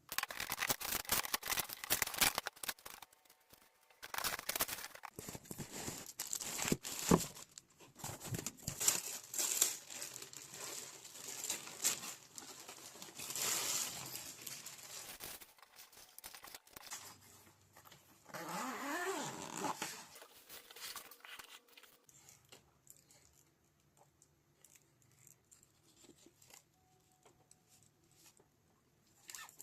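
Packaging of a new padel racket being torn open and crinkled, with rustling and sharp clicks of handling. Quieter, scattered handling sounds follow after about twenty seconds.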